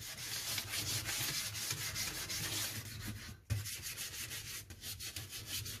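A damp, crumpled ball of aluminium foil scrubbed rapidly back and forth on a stainless steel sink basin: a gritty rubbing that scours off limescale, with a brief break about three and a half seconds in.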